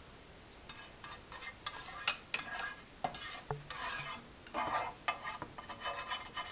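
Kitchen utensil scraping and clinking against a dish or pan in short, irregular strokes, as a piece of butter is cut and put in the pan.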